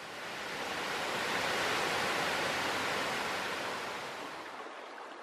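Waterfall: a steady rush of falling water that builds over the first second or so, holds, then fades away slowly through the last second or two.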